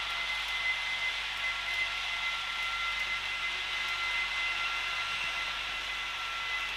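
H0-scale model trains running on the track: a steady whirring of the locomotives' electric motors, with a couple of held whining tones, over the rolling of wheels on the rails.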